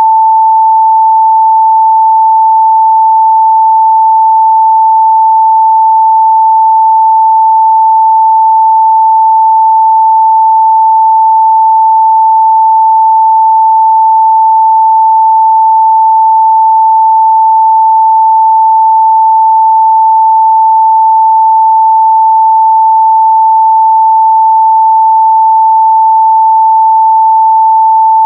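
Steady 885 Hz sine-wave test tone, a single pure pitch held without change or break at a loud, constant level.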